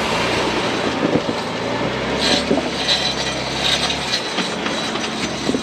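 A Jeep crawling over rocks: its engine runs low and steady under irregular clicks, creaks and crunches from the tyres, rocks and drivetrain, with a few sharper cracks in the middle.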